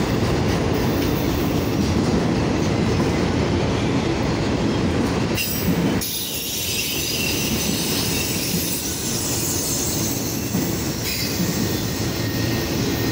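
Freight train of autorack cars rolling past close by, a steady rumble of wheels on rail, with wheel squeal rising in the middle part.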